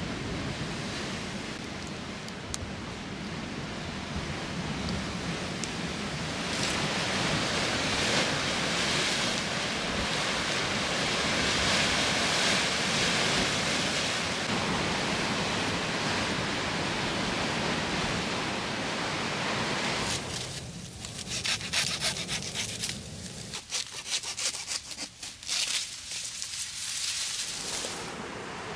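Wood campfire burning with a steady rushing hiss that swells a few seconds in. About twenty seconds in the hiss gives way to a quick, irregular run of dry crackles and rustles.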